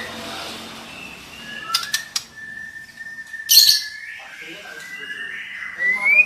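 Female white-rumped shama calling: clear whistled notes, a long held whistle, a short harsh rasp about three and a half seconds in, and a rising whistle near the end.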